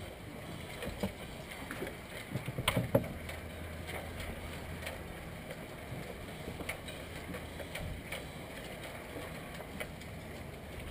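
Handling a just-caught channel catfish and a fishing rod in a boat cockpit: a quick run of knocks and taps about two and a half seconds in, then scattered light clicks over a faint low hum.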